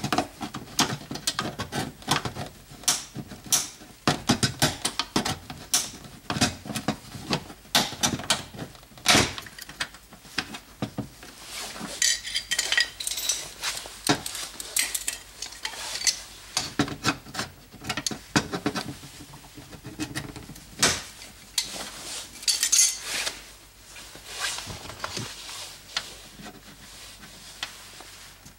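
Irregular metallic knocks, taps and clinks as a tool is driven against the leftover rivet remains in a minivan's inner door panel to break their heads off.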